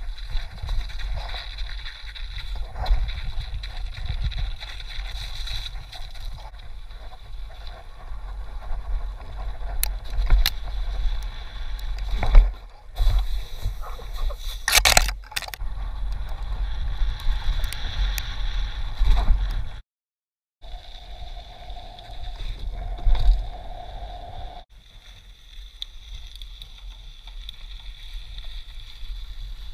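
Mountain bike riding heard from a helmet-mounted camera: wind rumble on the microphone and the tyres and frame rattling over snow and dirt, with several sharp knocks from bumps and landings. The sound cuts out for under a second about two-thirds through.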